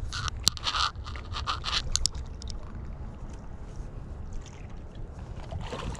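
Scraping and crunching for about the first two seconds, with a few sharp clicks, then a steady low rumble with only faint scattered ticks; the scraping picks up again near the end.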